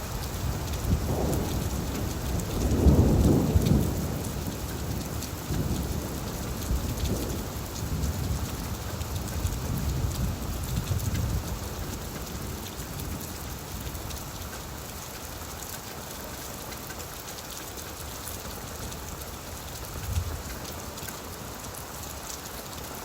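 Steady rain falling on leaves, with a low roll of thunder that swells about three seconds in and rumbles away over the next several seconds.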